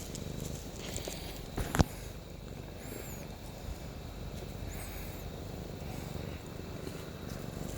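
Domestic cat purring close up as it is petted, a steady low rumble. A sharp click about two seconds in is the loudest sound.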